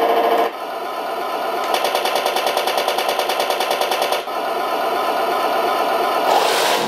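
Electronic sound unit of an RC T-90 model tank playing a rapid machine-gun effect for about two and a half seconds, starting about two seconds in, over its simulated engine sound. A louder noisy burst follows near the end.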